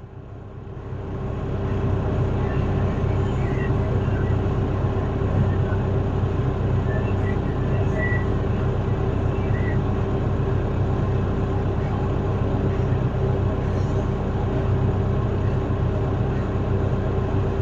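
Tractor engine running steadily, heard from inside the cab, with a constant hum and low rumble that builds over the first couple of seconds and then holds level.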